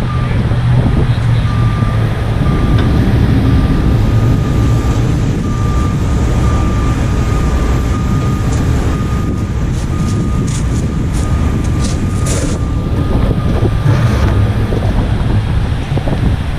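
Heavy rotator tow trucks' diesel engines running under load during a lift, with a steady high-pitched tone that stops near the end. There are a few sharp clanks about two-thirds of the way through.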